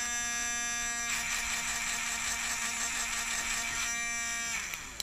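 Small battery-powered motor of a Buddies electric grinder running with a steady buzzing whine; its tone shifts about a second in and again near four seconds. It then winds down and stops near the end.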